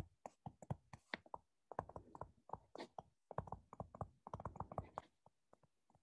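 Faint taps and clicks of a stylus writing on a touchscreen, in quick runs with short pauses, stopping about a second before the end.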